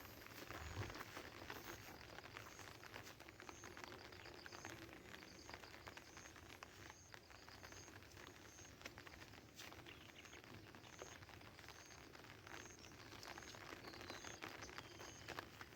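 Faint footsteps of a walker outdoors, with a short high chirp repeating a little more than once a second over soft outdoor background noise.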